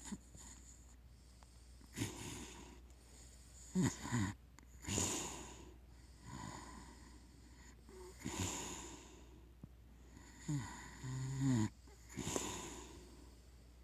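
A sleeping pig snoring: a series of wheezy, noisy breaths every second or two. Two of them, about four seconds in and near eleven seconds, carry a louder low pitched snort.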